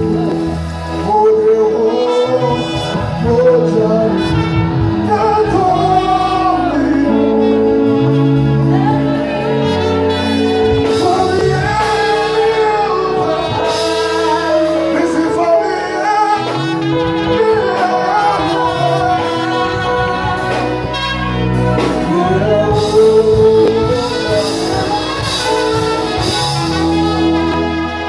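Live gospel music: a trumpet playing over held chords and bass notes, with singing.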